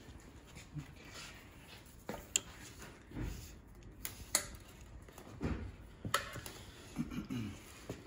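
Scattered light clicks and knocks from handling an electric scooter's brake lever and brake cable, with a few dull thumps in between.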